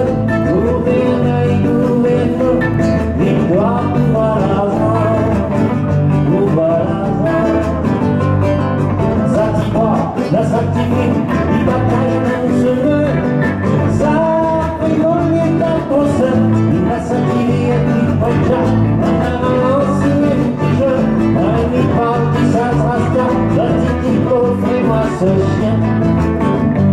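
Live band music from electric guitars and a bass guitar, without drums, with a wavering lead guitar line over held chords. Heard from behind the stage PA speakers, so the sound is rough.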